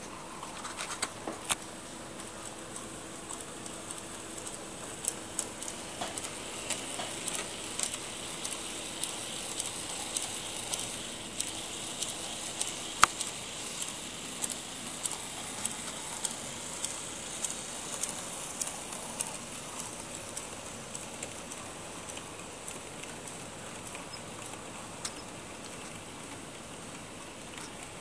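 HO scale Mehano 2-8-0 model steam locomotive and a short train running on sectional track, with a light motor whir and many small clicks from the wheels over the track joints. The clicks come thickest in the middle as the train passes close.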